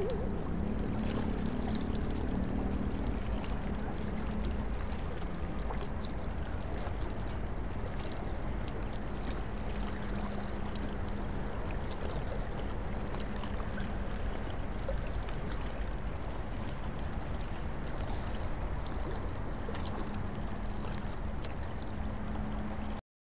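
Steady wash of harbour water against the quay under a low, even hum.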